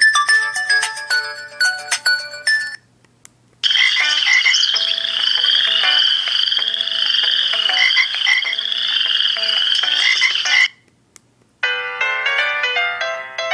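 Preloaded LG Voyager ringtones playing in succession. A melodic electronic ringtone ends, and after a short pause a ringtone of dense frog-like croaking over a low tune runs for about seven seconds. After another pause, a new melodic ringtone starts near the end.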